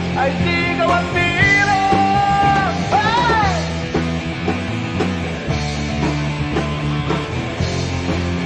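Rock band playing an instrumental stretch with no lyrics. In the first few seconds a lead line bends up and down in pitch, then the full band plays on steadily.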